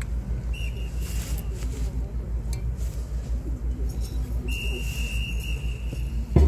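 A whistle gives two steady high blasts, a short one about half a second in and a longer one about four and a half seconds in, the signal that cues a marching band. The band's drums crash in right at the end.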